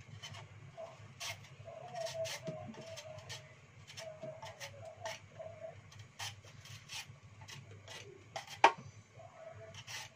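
Vegetable peeler scraping the skin off a lotus root in quick, uneven strokes, about two a second, with one louder click near the end; the peeler's blade is blunt. A faint wavering tone runs underneath.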